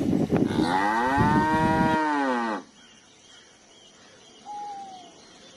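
Cow mooing: one long moo that falls in pitch at its end and stops about two and a half seconds in. It is followed by a quiet stretch with one short, quieter falling note.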